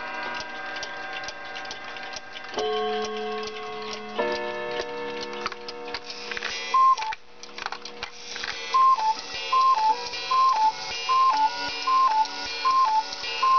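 August Schwer cuckoo clock with a Regula movement ticking, with a melody of held notes over the ticking for the first half. Then the cuckoo calls its two-note call once, and after a short gap goes on calling the hour, a little more than once a second.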